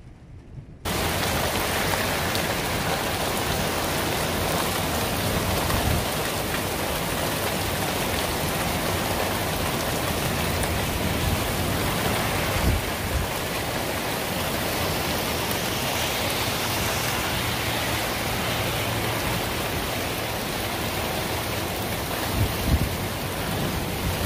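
Heavy rain pouring down in a steady hiss, starting abruptly about a second in after a quieter stretch, with a few low bumps along the way.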